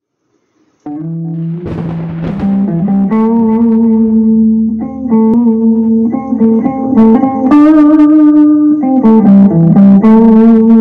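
Electric guitar playing a slow melodic line of long, sustained notes, some held with vibrato, starting about a second in.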